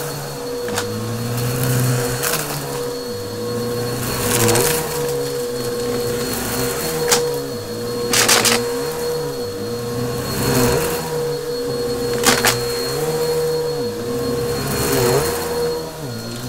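Upright vacuum cleaner running over a shag rug with a steady motor whine. Its lower hum swells and dips with each push-and-pull stroke, about every two seconds. Several sharp crackles break through as debris is sucked up.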